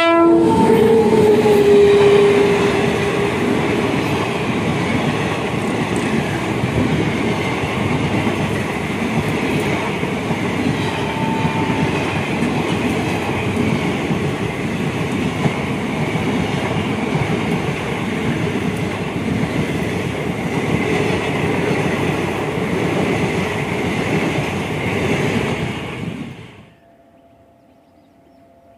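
WAP-7 electric locomotive and its passenger coaches passing at speed: a blast of the locomotive's horn right at the start, then the steady clatter and rush of the long rake of coaches going by. The sound cuts off suddenly near the end.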